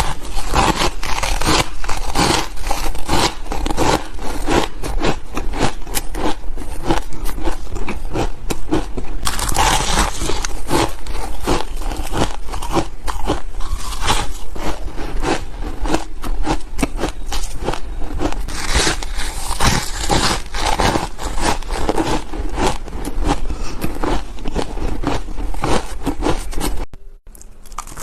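Ice being chewed close to the microphone: a continuous, rapid crunching and crackling, with one short break near the end.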